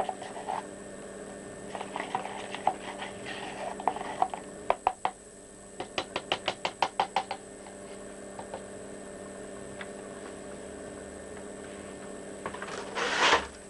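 Metal spoon stirring watery gesso in a plastic tub, knocking and scraping against its sides, with a quick run of about a dozen taps, some eight a second, midway. A louder scrape or rustle of handling comes near the end, over a steady low hum.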